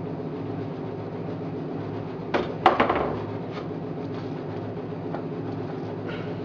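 A few light knocks and clicks about two and a half seconds in, from a plastic wood-glue bottle and the pine hive-box pieces being handled while glue is squeezed into the box joints, over a steady machine hum.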